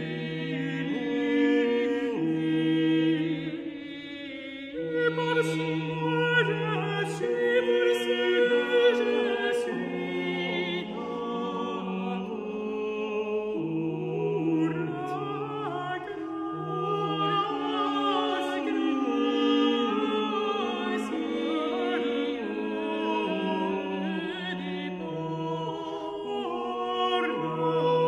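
Late-14th-century ars subtilior canonic virelai performed by an early-music ensemble: several voices singing interweaving melodic lines over a slow-moving lower part of long held notes.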